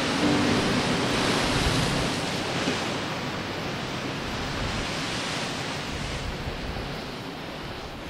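Storm surf breaking over a rocky shoreline: a steady rush of waves and spray, with some wind, fading gradually toward the end.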